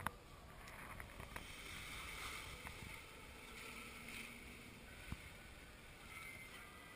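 Faint steady wind rush, a soft hiss without distinct events, with one faint click about five seconds in.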